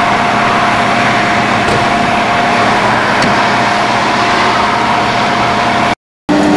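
Emergency vehicles idling: a steady, loud engine drone with a constant whine over it. It cuts out briefly about six seconds in.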